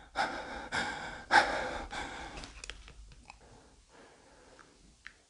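A person breathing heavily close to the microphone, with three loud breaths in the first two seconds. Then faint scattered clicks and taps, with one sharper click near the end.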